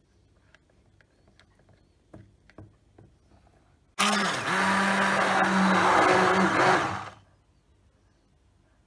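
Hand-held immersion blender switched on about four seconds in, its motor running steadily for about three seconds as it churns thick milk cream toward butter, then switched off. Before it there are only faint small clicks.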